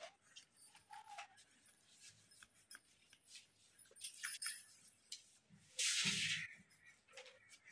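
Pencil scratching back and forth on a coloring-book page as an area is shaded in, in a quick run of faint scratchy strokes. About six seconds in there is a louder rustle lasting under a second.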